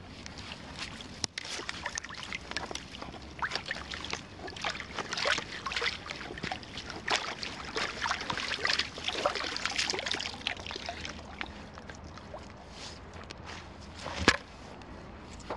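A long-handled dip net being jabbed and swept through waterside grass and willow stems in shallow water: irregular splashing, sloshing and rustling, easing off after a while. A single loud thump near the end, when the muddy net is set down on the grass.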